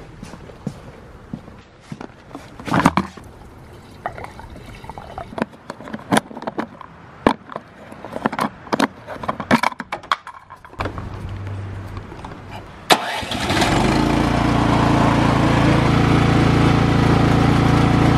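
Knocks and clicks of a plastic gas can and fuel cap being handled while filling the snowblower, then about eleven seconds in a low hum for two seconds and a sharp click, after which the Cub Cadet 3X snowblower's single-cylinder four-stroke engine starts from cold and runs steadily.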